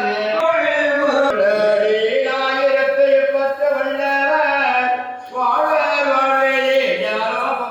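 A male voice chanting a devotional chant in long held notes that glide from pitch to pitch, with a short break about five seconds in.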